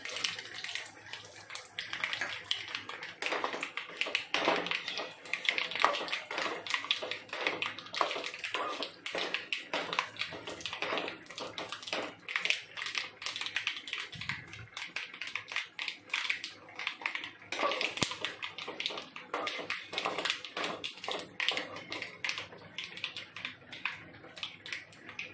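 Hot oil in a pan sizzling, with a steady stream of sharp crackles and pops as dried red chillies, curry leaves and mustard seeds fry for a tempering.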